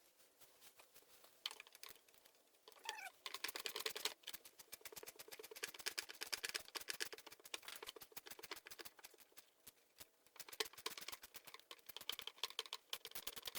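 Hand ratchet wrench clicking in quick, even runs as fasteners are backed out, with a short falling squeak about three seconds in. The runs pause briefly partway through.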